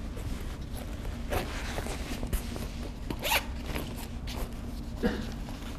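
Backpack zipper pulled in several short strokes, with rustling of the bag; the loudest pull comes a little past halfway.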